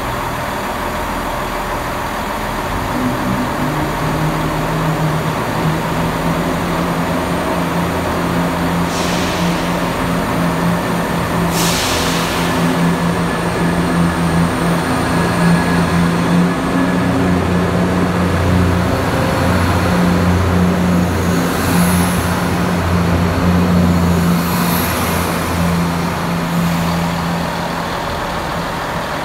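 Underfloor diesel engines of a Chiltern Railways Class 168/0 diesel multiple unit running under load as the train pulls away, a steady low drone that eases near the end. A few short air hisses come through, twice about a third of the way in and twice more past two-thirds.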